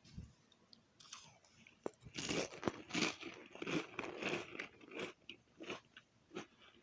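A person biting into a soda cracker with a loud crisp crunch about two seconds in, then chewing it with steady crunches, roughly two a second, that grow fainter.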